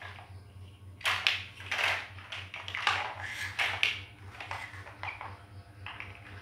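Hard plastic toy building bricks clattering and clacking as hands rummage through a loose pile, pick bricks out, set them down and press them together. The clacks come irregularly from about a second in, over a low steady hum.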